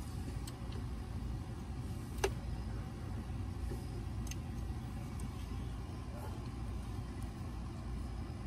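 A few light, scattered metallic clicks of hand tools working at the engine, the sharpest about two seconds in, over a steady low background rumble.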